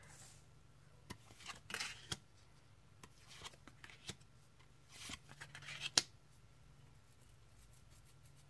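Glossy laminated tarot cards being dealt one at a time onto a wooden shelf: a few short swishes and soft taps as cards slide off the deck and land, with a sharper click about six seconds in.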